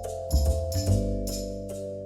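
Background music: a steady beat of light percussive clicks over sustained chords and deep bass notes.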